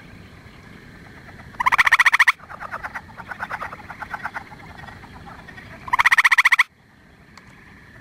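Gray treefrog calling: two loud, evenly pulsed trills, each under a second long and about four seconds apart. Fainter trilling and a steady high hum of a background chorus run between them.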